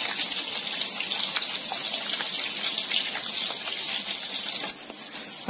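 A whisk swishing through a pot of thin milk-and-rice mixture, making a steady wet, splashy hiss that drops off sharply near the end.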